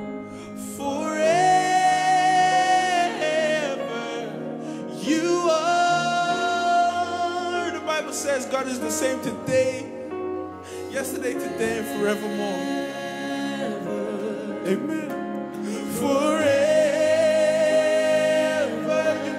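Live worship band playing, with a male lead singer holding long sung notes in three drawn-out phrases over the band.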